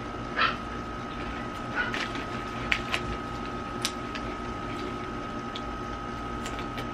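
A few short, sharp crunches of crisp snack being eaten, over a steady background hum with a thin, constant high tone.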